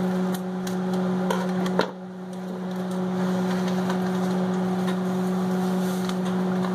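Microwave oven running with a steady hum as it heats butter. Over it come a few sharp clicks of scissors cutting open a paper bag, the loudest a little under two seconds in.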